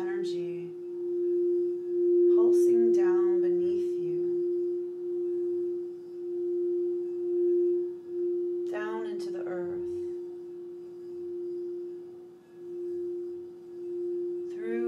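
Quartz crystal singing bowl sung by rubbing a mallet around its rim: one steady pure tone that swells and eases in slow waves.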